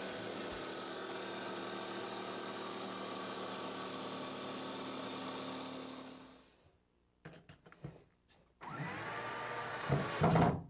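Jigsaw cutting the sink opening in a countertop, its motor running steadily and then winding down about six seconds in. After a few clicks of handling, a cordless drill spins up with a rising whine, driving a screw into a wooden board.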